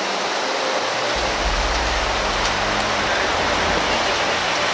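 Steady rushing outdoor noise, with a low rumble joining about a second in.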